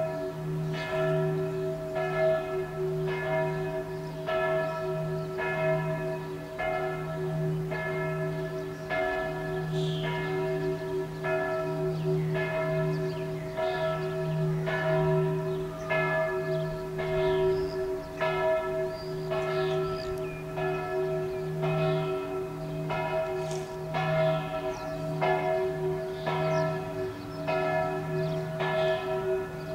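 A church bell ringing, struck about three times every two seconds, its long hum carrying on between strokes.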